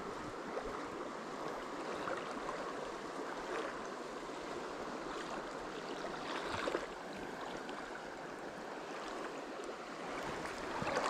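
Fast-flowing river water rushing steadily, with a few faint knocks.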